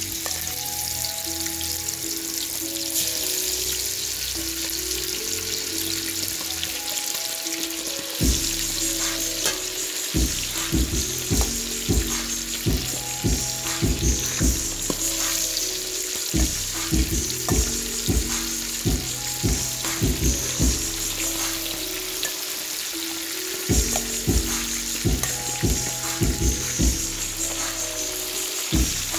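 Chicken wings deep-frying in a pot of hot oil, a steady sizzle. Background music plays under it, and a regular drum beat comes in about eight seconds in.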